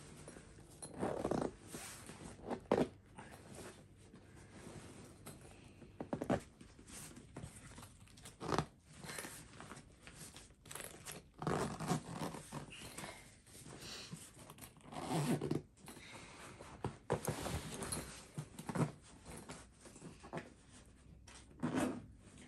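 Zipper of a fully packed Nomad Lane Bento fabric travel bag being pulled closed in short, uneven runs. Rustling and a few thumps come in between as the bag is shifted and turned.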